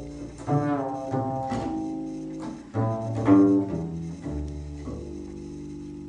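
Double bass played solo: a short run of separate notes, then a long low note held from about two-thirds of the way in, slowly fading.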